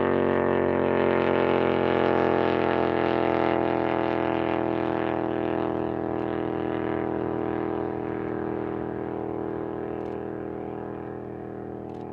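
Racing lawnmower's small engine running flat out at a steady pitch during a land-speed run, the drone gradually fading.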